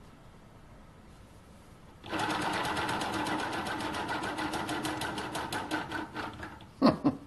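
Small home-built gamma Stirling engine running, starting about two seconds in with a fast rhythmic mechanical clatter of about ten beats a second that slows slightly, then a few loud knocks near the end as it stops. The builder puts the stopping down to too much timing.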